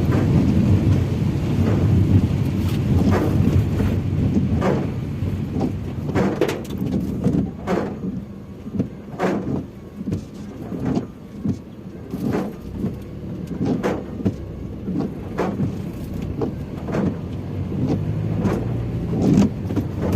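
Inside a Maruti Suzuki Ertiga driving on a highway in rain: steady low road and engine rumble, with a string of short sharp taps coming roughly once a second through most of it.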